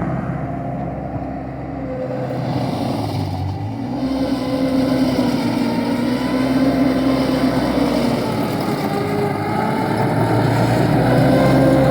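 Wacker Neuson SM100 mini skid steer's engine running steadily, its pitch sagging and rising as it works, and growing a little louder near the end.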